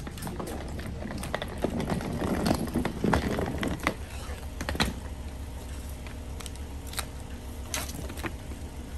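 Hard-shell rolling suitcase pulled over rough pavement, its wheels rattling, with scattered clicks and knocks from the luggage being handled.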